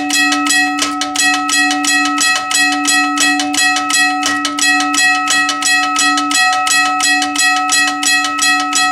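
Union Switch & Signal teardrop railroad crossing bell ringing: its hammer strikes the gong several times a second in an even rhythm, and the bell's ringing tones carry on between strikes.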